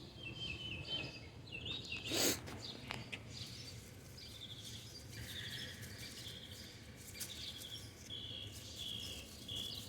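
Birds chirping outdoors, a run of short, evenly repeated high calls through the second half, with one brief rustle a little over two seconds in.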